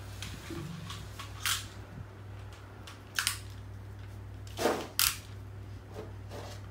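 Four short sharp clicks and knocks from something being handled, the two loudest close together about five seconds in, over a steady low hum.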